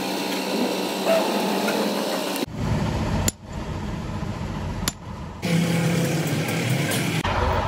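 Hand tools working on a truck differential: a wrench on the ring-gear bolts, with two sharp metal clicks. Under it is workshop noise that changes abruptly a few times.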